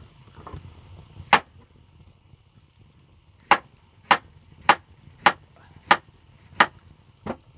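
Kitchen knife slicing through onto a wooden cutting board: eight sharp knocks, one on its own, then seven at an even pace about two-thirds of a second apart.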